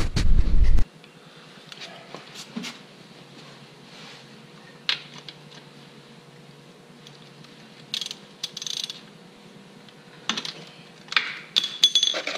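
Scattered metallic clicks and clinks of a socket ratchet and tools as a 17 mm drain bolt is backed off, after a brief loud rumble in the first second.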